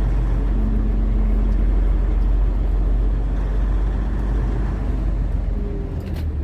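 Semi truck's diesel engine running as the truck rolls slowly, heard from inside the cab as a steady low rumble. A few brief clicks near the end.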